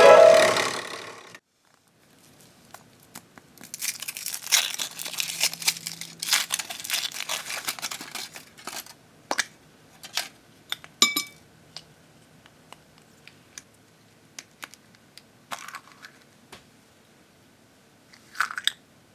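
Crinkly wrapper being torn open and peeled off by hand, a dense crackling for several seconds, followed by scattered small clicks and taps and a short rustle near the end.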